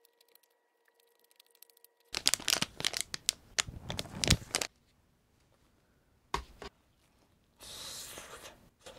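A food wrapper being torn open and crinkled, a dense crackle lasting about two and a half seconds, followed near the end by a single click and a short rustle.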